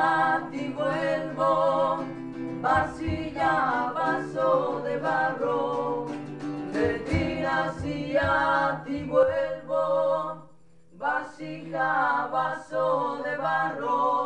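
An Andean folk song sung to acoustic guitar accompaniment in a home rehearsal. There is a brief break between sung phrases about ten seconds in.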